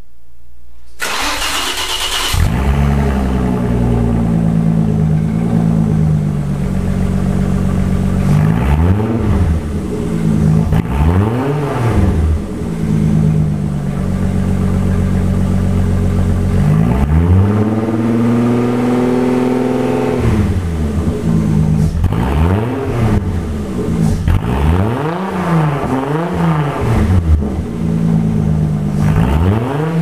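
VW T3 Doka's V6 engine breathing through an open stainless exhaust with no mufflers fitted, firing up about a second in and then idling between throttle blips. It is revved in short blips several times, held high once for about three seconds, and echoes in the workshop hall.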